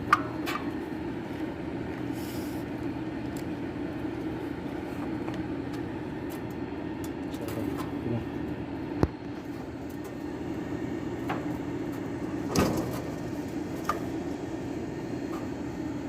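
Steady machinery hum in the background, with a few sharp clicks and knocks from parts and tools being handled while a new capacitor is wired in.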